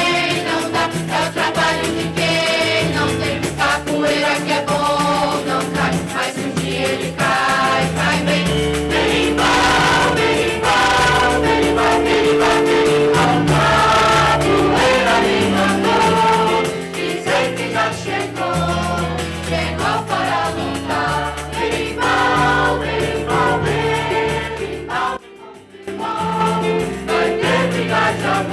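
A choir of young music students singing a song with instrumental accompaniment and a steady bass line. The music drops out briefly near the end, then resumes.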